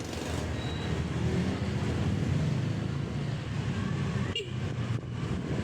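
Street traffic: a vehicle engine running steadily with road noise around it, dipping briefly about four seconds in.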